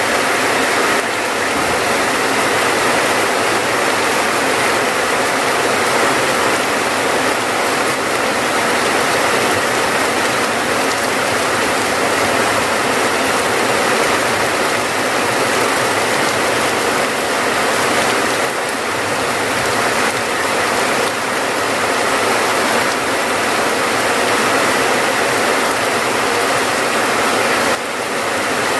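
Steady rain falling, a loud, even hiss of water that holds unchanged throughout.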